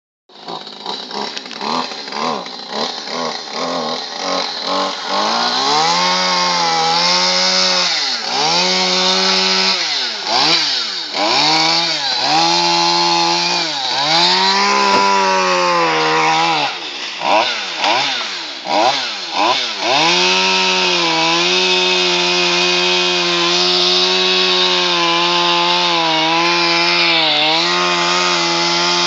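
Chainsaw revving in quick short blips, then in longer rises and falls of pitch, and from about two-thirds of the way in running at a high, fairly steady speed with small dips in pitch.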